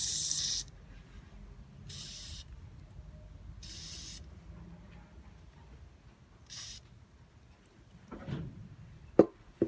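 Aerosol carburetor cleaner sprayed in four short hissing bursts into the passages of a small two-stroke diaphragm carburetor to clean it, the first burst the longest and loudest. A couple of sharp knocks near the end, the first the loudest sound here.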